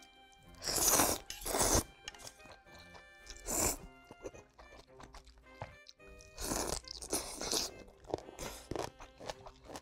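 Ramyun noodles being slurped from chopsticks in about six loud sucking bursts, some in quick pairs, with chewing between them.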